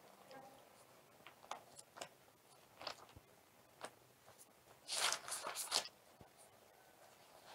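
Paper pages of a Bible being leafed through: faint scattered rustles and small clicks, with a louder flurry of rustling about five seconds in.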